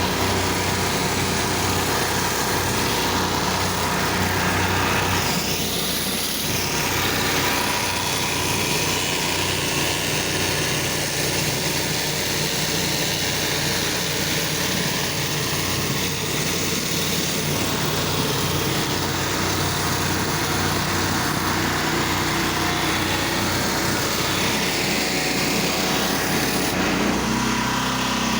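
Gas-engine pressure washer running steadily, with the hiss of the high-pressure water spray on concrete. Near the end the engine note shifts.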